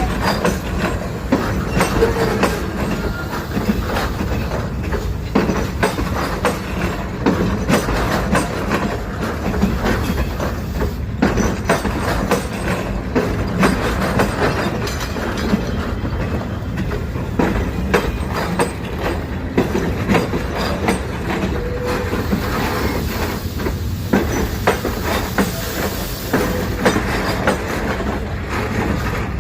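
Train running along the track: a steady rumble with a dense run of wheel clicks over the rail joints.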